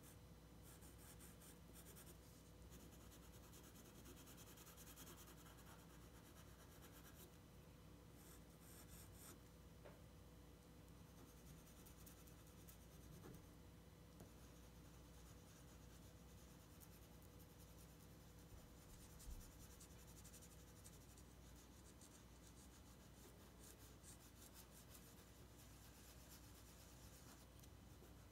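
Faint scratching of a graphite pencil shading on paper, in stretches of quick back-and-forth strokes, with one soft knock about two-thirds of the way through.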